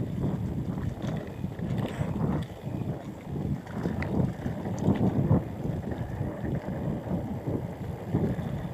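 Mountain bike riding fast over a dirt forest trail: wind rushing over the microphone and the rumble of knobby tyres on dirt and leaf litter, with scattered rattles and knocks from the bike over bumps.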